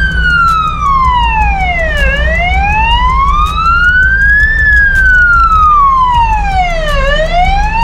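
Ambulance siren wailing, a slow rise and fall of about five seconds a cycle: it falls, climbs, then falls again. Under it is the steady low rumble of the truck cab's engine.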